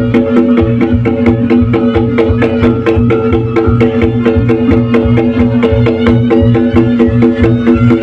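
Reyog Ponorogo gamelan accompaniment: drums beaten in a fast, even rhythm under a repeating pattern of ringing pitched metal chimes.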